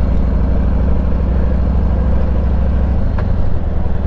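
Vehicle engine idling steadily, with a low even hum that shifts slightly about three seconds in.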